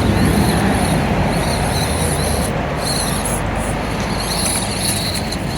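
Micro-scale RC comp buggy driving off at the start of a timed run: its small electric motor and gears give a high whine over a dense rough hiss, dropping out briefly twice around the middle.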